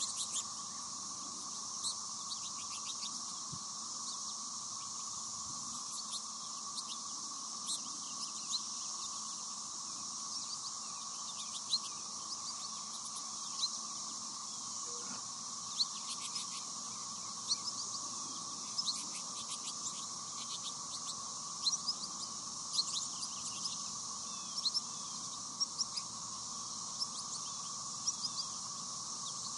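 A flock of American goldfinches gives short high chirps and twitters at the feeders, scattered at first and busier in the second half. Under them runs a steady high insect drone and a steady lower tone.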